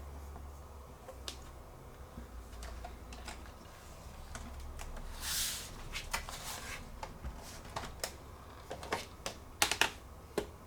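Scattered light clicks and taps of hands working on a laptop's plastic case and parts. There is a short scraping slide about five seconds in and a quick run of sharp, louder clicks near the end.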